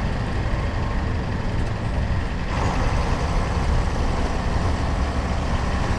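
Mercedes-Benz OF-1721 bus's OM-366LA turbocharged six-cylinder diesel running with a steady low rumble. A rushing noise grows louder about halfway through.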